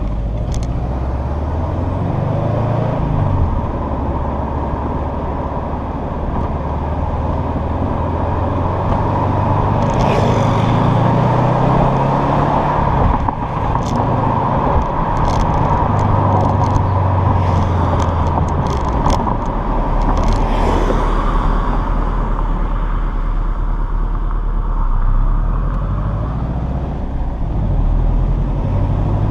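A Subaru driving, heard from just outside its tailgate: a steady low engine and exhaust note that shifts as the speed changes, under a constant tyre and road noise over rough pavement. A run of sharp clicks comes about halfway through.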